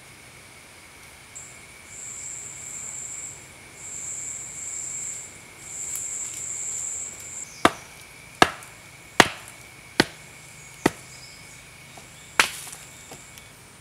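Six sharp knocks of wood being struck, a little under a second apart, starting about halfway through. Before them, insects buzz in three long high-pitched spells over a steady insect drone.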